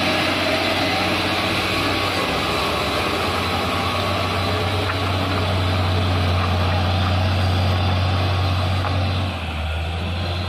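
Turbo diesel engine of a 220 PS Mitsubishi Fuso dump truck pulling steadily uphill at low speed on a slippery mud slope, a steady low drone. It eases off about nine seconds in.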